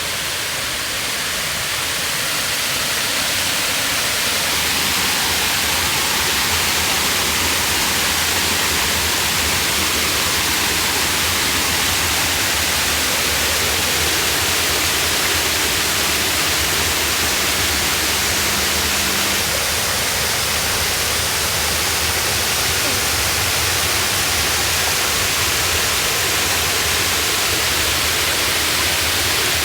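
Wide, low waterfall, about 4 m high and 30 m across, pouring over a broad slab of rock in two steps: a steady, loud rushing of falling water. It grows slightly louder over the first few seconds.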